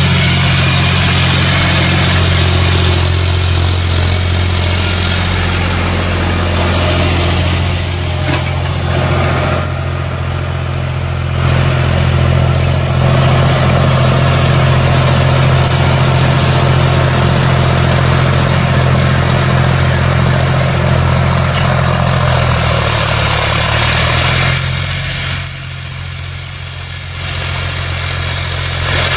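John Deere 5105 tractor's three-cylinder diesel engine running steadily under load as it pulls a disc harrow through soil. It is briefly quieter near the end.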